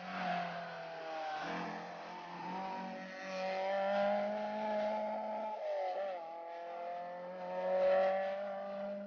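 Rally car engine running at high revs under hard acceleration, its pitch dropping and climbing again about six seconds in as the driver lifts and gets back on the throttle.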